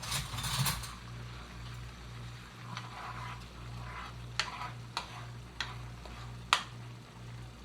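Spoon stirring seasonings into melted butter in a pan, scraping at first, then a few sharp clicks against the pan over a faint sizzle.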